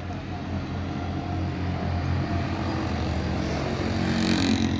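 A motor vehicle engine running with a steady low hum, gradually growing louder, with more hiss near the end.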